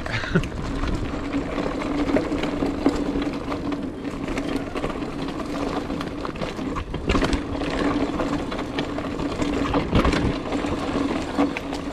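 2019 Trek Roscoe 8 mountain bike coasting down a dirt singletrack: knobby tyres rolling over dirt and dry leaves, wind on the chest-mounted microphone, and a steady buzz from the rear hub freewheeling. The bike jolts over bumps with a couple of sharp knocks, the hardest near the end.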